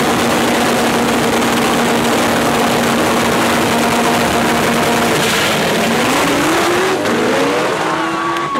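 Front-wheel-drive drag race car engine held at a steady high rev, then accelerating hard about six seconds in, its pitch climbing as the car pulls away down the strip.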